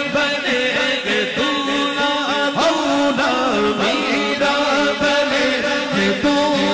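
Male voice singing a naat, long drawn-out melodic phrases without clear words, over a steady held drone.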